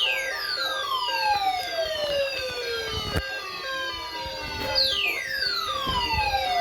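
Electronic siren-style alert tone from a broadcast severe-weather warning: a tone that falls from high to low over about three seconds, sounded twice, over a pulsing beep pattern, with a single sharp click between the two sweeps.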